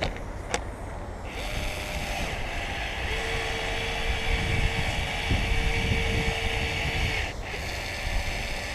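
Powered urethane gun running while it lays a bead of auto-glass urethane: a steady hiss with a steady motor tone, starting about a second in and cutting off suddenly near the end.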